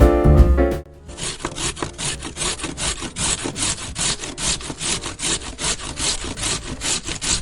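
Hand saw cutting through wood in quick, even back-and-forth strokes, several a second. A short bit of music ends just before the sawing starts.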